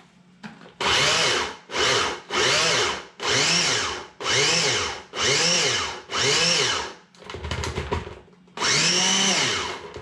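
Countertop blender pulsed about eight times to chop celery and jalapeños, each short burst of the motor whirring up in pitch and winding back down. There is a brief, quieter rattle before the last, longer pulse.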